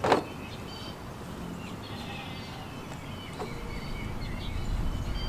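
Small birds chirping repeatedly in the background, with one sharp knock right at the start and a low rumble building in the second half.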